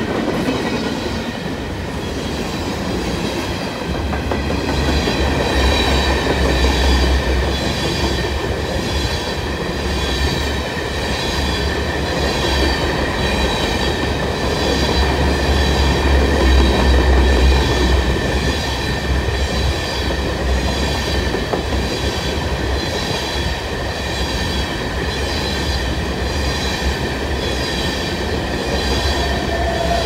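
Freight cars of a long train, tank cars then covered hoppers, rolling past at speed: a continuous rumble and clatter of wheels on rail, heaviest in the middle, with a steady high-pitched wheel squeal over it.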